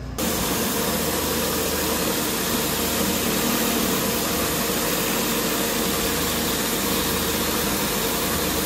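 Pressure-washing rig's engine running steadily under an even hiss of spraying water.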